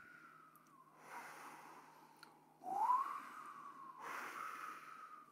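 Faint breathy whistling: a run of rising, gliding notes about a second or so apart, with a hiss of air under each one.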